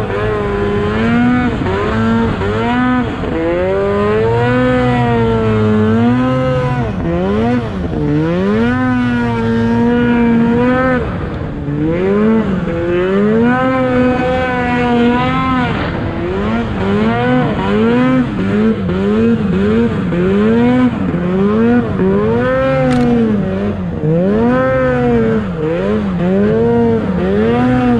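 Snowmobile engine revving, its pitch climbing and falling back again and again under the rider's throttle, the swings coming faster in the second half. A brief sharp click sounds a few seconds before the end.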